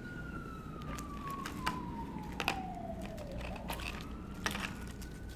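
Emergency-vehicle siren on a slow wail: the pitch falls steadily for about three seconds, then rises back up. A few small clicks are heard along with it.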